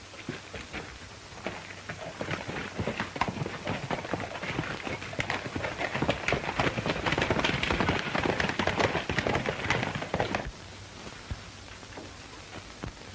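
Hooves of several horses being mounted and ridden off, a dense, irregular patter of hoof strikes that builds, then cuts off suddenly about ten seconds in, leaving the steady hiss of an old film soundtrack.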